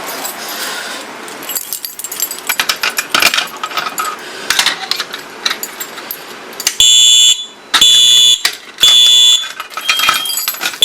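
Keys jangling and clicking as a pull station is key-activated, then the fire alarm system's horn sounds: four extremely loud, evenly spaced beeps of a high, buzzy tone, about one a second.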